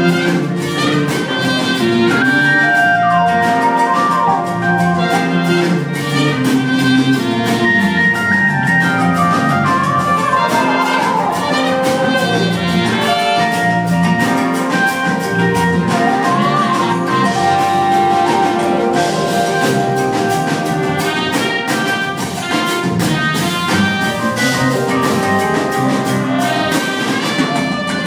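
A live jazz-funk band playing, with a trumpet carrying the lead line over electric guitar, keyboards, bass and drums, recorded from among the audience.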